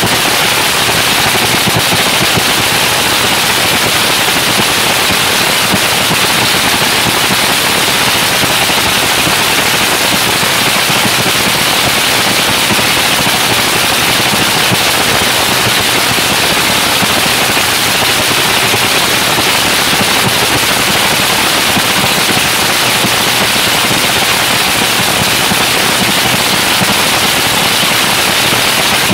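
Supercharged V8 drag-racing engine of the 'Havoc' car running a steady, loud warm-up idle in the pits, its rapid firing pulses making a dense, unbroken crackle.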